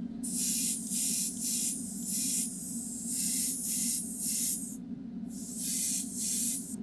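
Paint being sprayed onto a plastic model in about a dozen short hissing bursts, each roughly half a second long, with a brief pause about two-thirds of the way through.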